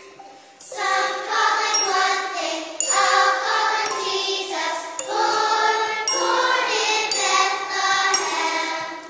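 Children's choir singing, coming in about a second in, with a bright, tinkling instrumental accompaniment.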